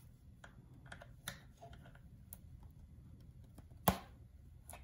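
Light, scattered clicks and scrapes of a metal pick prying at the plastic case of a small solar trickle-charger panel, with one sharp snap about four seconds in.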